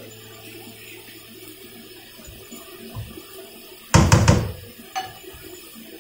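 Porcelain mixing bowl set down on the counter about four seconds in, with the spoon in it clattering against the bowl; one lighter click follows a second later.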